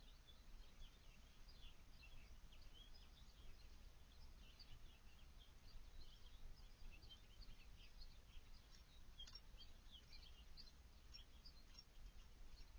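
Faint, frequent short chirps of small backyard songbirds, with a low steady rumble underneath.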